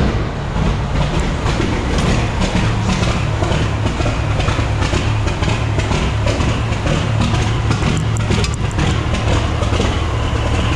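Freightliner semi truck's diesel engine idling as it warms up, a steady low rumble with a rapid clatter on top.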